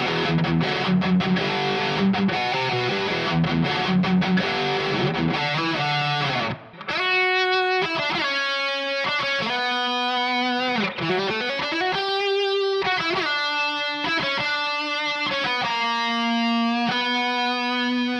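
Donner DST-152B electric guitar with fresh D'Addario 10-gauge strings, played through a distorted tone: dense rhythm playing on the low strings with short stops, then, after a brief break about seven seconds in, a single-note lead line with held notes and one note gliding up in pitch.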